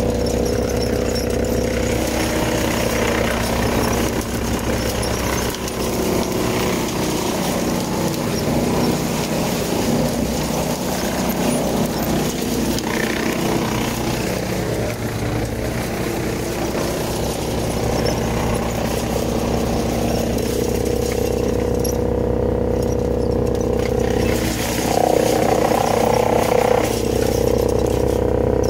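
Farmi CH27 PTO wood chipper, driven by a FiatAgri 115-90 tractor, running steadily under load as its feed roller pulls in brushy branches to be chipped. The engine and rotor drone carries on without a break and grows a little louder, with a higher tone, for a few seconds near the end.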